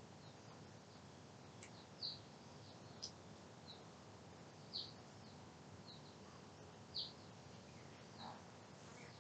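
A small bird chirping now and then, short high chirps spaced about a second apart over near-silent room tone, the clearest about two, five and seven seconds in.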